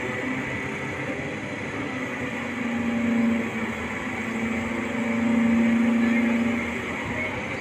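Large mobile crane's engine running steadily with a hum that swells twice, briefly about three seconds in and for longer around five to six and a half seconds, over a faint steady whine.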